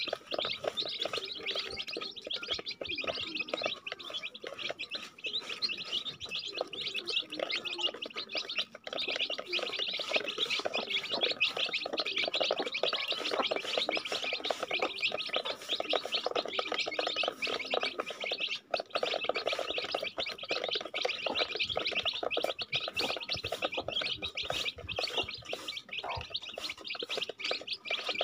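A brood of chicks peeping continuously in a dense, overlapping chorus of short high calls as they crowd the feeder.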